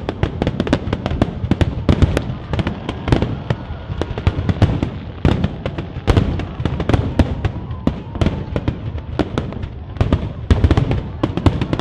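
Aerial firework shells bursting in a dense barrage: several sharp bangs and crackles a second over a continuous low rumble.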